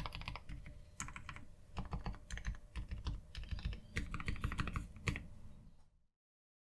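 Typing on a mechanical keyboard fitted with Gateron POM Mint Smoothie silent linear switches: dampened key presses in quick, uneven runs. It cuts off suddenly about six seconds in.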